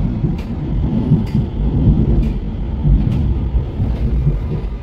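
Cologne Stadtbahn car running between stops, heard from inside the car: a steady low rumble with a sharp click roughly every second.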